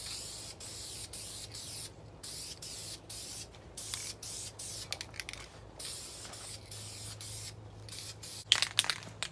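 Aerosol spray can of VHT high-temperature primer hissing in a run of short bursts with brief pauses, laying a light dusting coat onto a turbo exhaust manifold. A few sharp clicks come near the end.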